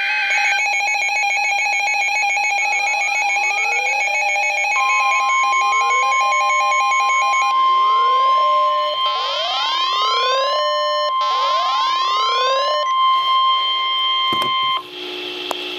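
NOAA Weather Radio's 1050 Hz alert tone, a steady single tone held for about ten seconds from about five seconds in, marking the start of a new warning broadcast. It is layered over other electronic alert sounds: a rapid warbling pattern in the first half and rising chirps repeating about once a second. The sounds stop abruptly just before the end.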